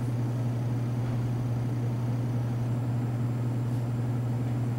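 Steady low hum with an even hiss behind it: the room tone of a classroom.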